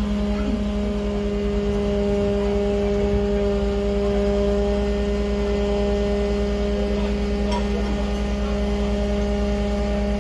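Fire trucks' engines running steadily at a constant speed, giving an even, unchanging hum with a low rumble beneath.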